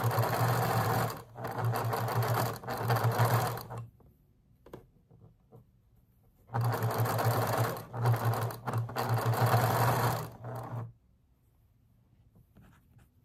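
Electric sewing machine stitching patchwork seams in two runs of about four seconds each, with a steady motor hum and short stops between seams.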